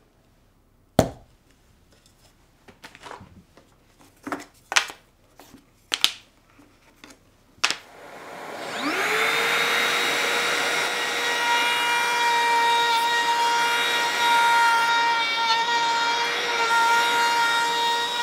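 A few sharp knocks and clicks as tool and parts are handled and set down. About eight seconds in, a Makita cordless brushless trim router spins up and runs steadily at a high, even whine, routing a recess in MDF with a dust extractor hose attached.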